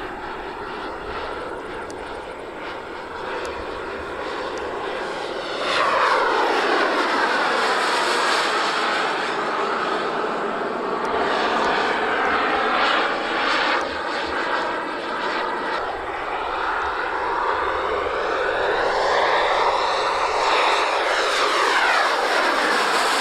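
Turbine engines of a large radio-controlled Me 262 scale jet model in flight, a steady jet whine and rush. It gets suddenly louder about six seconds in, with the pitch sweeping down as the model passes, and it swells and falls in pitch again near the end as it makes another pass.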